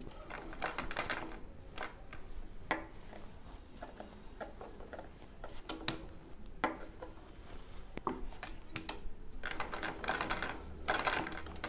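Sewing machine stitching in short, stop-start runs while pleats are folded and sewn into cotton fabric: scattered clicks and light rattles of the mechanism, thickening into a run of quick ticks near the end.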